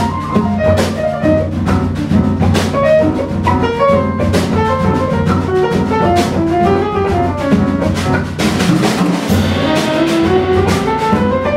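Jazz trio of violin, piano and drums playing: a bowed violin melody over busy drum-kit strokes, with a climbing run of notes near the end.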